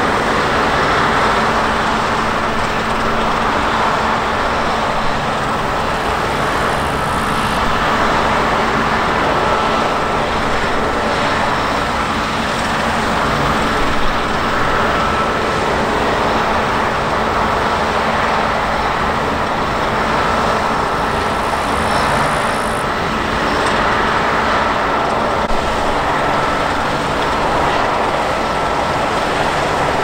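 New Holland CR combine harvesters working in standing rapeseed, with their engines, headers and threshing gear running. The result is a steady, even machine noise with a faint steady whine.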